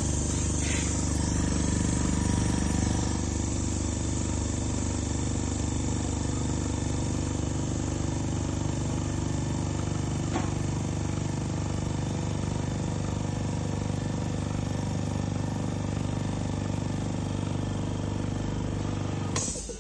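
Dental porcelain furnace's vacuum pump running steadily during the furnace self-test's vacuum check, a loud even hum with a single light click about halfway through. It stops abruptly near the end.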